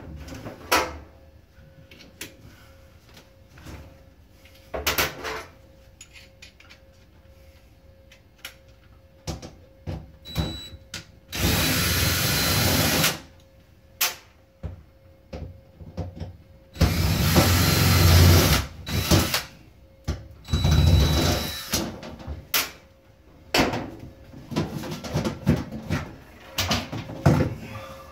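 Cordless drill-driver running in three bursts of a second or two each, backing out the screws of a wall wiring panel's cover. Scattered clicks and knocks from handling come between the bursts.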